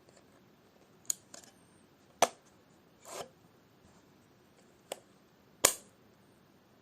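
Camera shutter firing five times at uneven intervals, each a short sharp click; the one about three seconds in is a softer, longer release.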